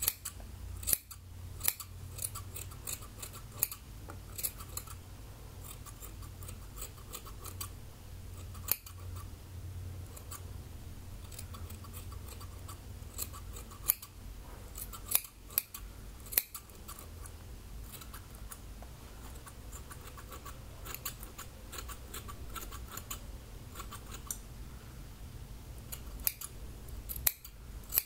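Scissors snipping through long wet hair: sharp single snips and short quick runs of snips at irregular intervals.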